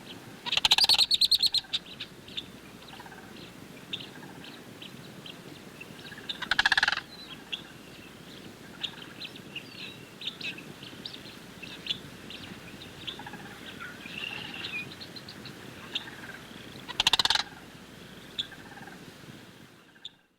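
Sandhill cranes giving loud, rattling calls three times: about a second in, near 7 s and near 17 s. Many short, high chirps sound between the calls, and the recording fades out at the end.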